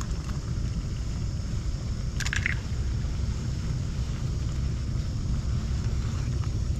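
Wind buffeting the microphone in a steady low rumble, with a brief clatter of clicks about two seconds in.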